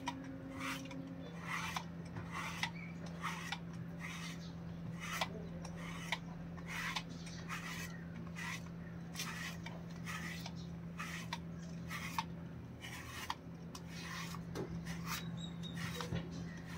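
A self-cleaning slicker brush with metal bristles drawn through a long-coated German Shepherd's thick fur in slow, repeated strokes, a scratchy rasp about every half second.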